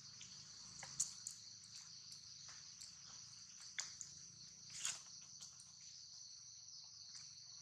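Steady high-pitched drone of insects in the trees, with a few short crackles and rustles of dry leaf litter as macaques move about on it.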